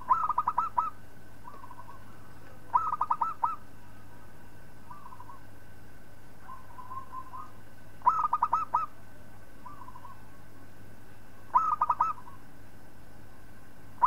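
Zebra dove (perkutut) cooing: five phrases a few seconds apart, each a quick run of staccato notes lasting under a second, with softer short coos in between.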